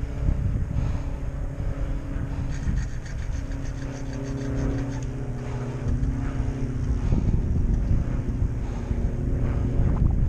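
Wind buffeting the microphone of a head-mounted camera on a moving bicycle, with a low rumble throughout. A steady engine drone joins about a second in and fades out around seven seconds.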